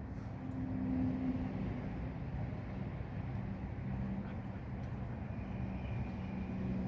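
A steady low engine hum with a faint held pitch, like a motor vehicle running.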